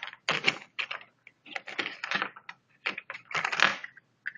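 Plastic parts of a laptop side cooler being handled and tried for fit, clicking, scraping and rattling in irregular bursts.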